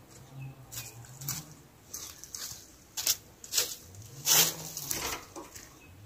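Canary flitting and hopping about its wire cage: a series of short, soft wing-flutter rustles, the loudest about four and a half seconds in. No song.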